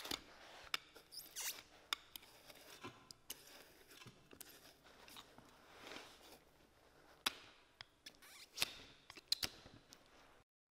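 Boot sole stitches being cut with a small hand blade while the wedge sole is pried back from the welt: irregular sharp snips and clicks with short scratchy scraping. The loudest snips come about two seconds in and several times in the last three seconds, and the sound cuts off just before the end.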